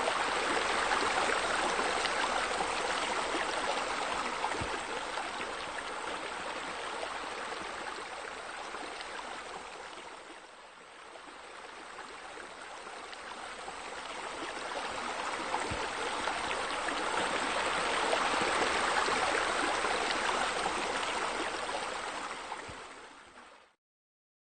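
Steady splashing of water pouring from a pool's waterfall features into the pool. It dips about ten seconds in, swells again, and cuts off suddenly near the end.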